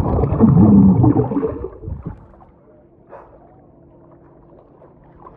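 Sea water bubbling and churning around a submerged camera microphone, muffled and loud for about two seconds. It then drops suddenly to a faint, muffled underwater hush.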